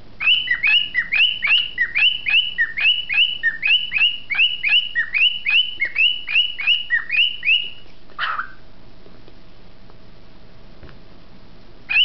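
Cockatiel calling a fast, even run of short whistled chirps, about three a second, each sliding down in pitch. The run stops about eight seconds in with one rougher, lower call.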